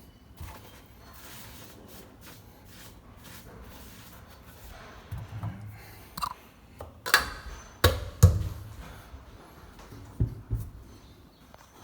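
Scattered clicks and knocks from plumbing parts and tools being handled and fitted, with a few heavier thuds near the middle.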